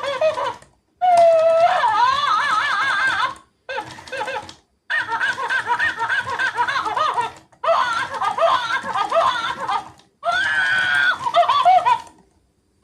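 Talking and dancing toy monkey playing high-pitched, wavering giggling sounds through its small speaker, in about six bursts separated by brief pauses.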